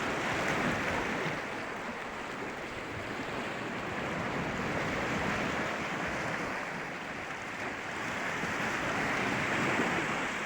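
Sea surf breaking on the shore, a steady wash of waves that swells and eases in slow surges about every four to five seconds.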